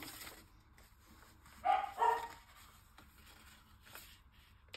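A dog barking twice in quick succession, about two seconds in.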